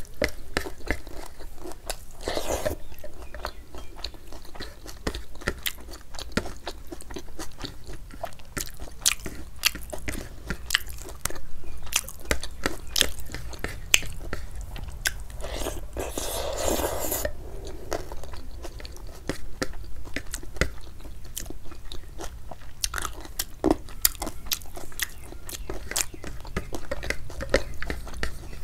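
Close-miked mukbang eating sounds: wet chewing and lip smacks with many quick mouth clicks, as rice mixed with dal and curry is eaten by hand. A couple of longer, louder mouth sounds come about two seconds in and again at about sixteen seconds.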